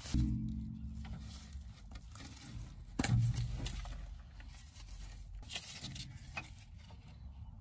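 Gloved hands working the plastic electrical connector of an ABS wheel-speed sensor, with light rubbing and scraping and one sharp click about three seconds in as the plug comes apart. A low rumble at the start.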